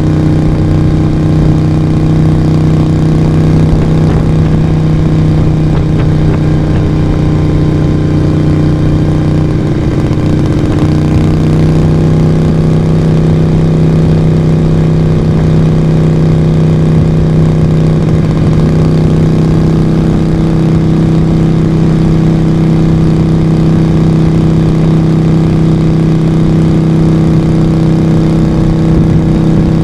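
Moto Guzzi V35's air-cooled V-twin engine and exhaust running steadily, with a brief dip and wobble in the engine note about ten seconds in and a slight change of note around twenty seconds in.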